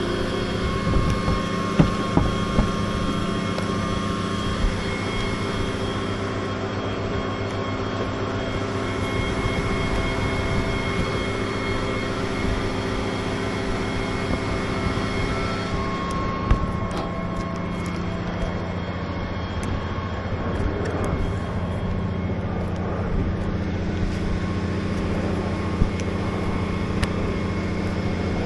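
A truck-mounted boom crane's diesel engine running steadily, a constant low hum with held tones. A few sharp knocks come through it, from old asphalt shingles being pried off the roof.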